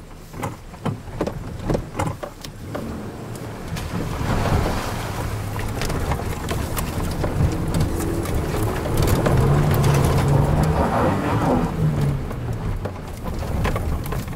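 An off-road 4x4's engine revs hard under load. It swells about four seconds in, is loudest past the middle, then eases off. Scattered sharp clicks and knocks come in the first few seconds.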